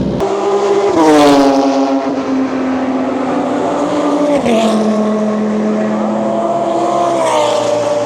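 GT3 race car engines at full song going past, the engine note falling in pitch three times as cars pass by.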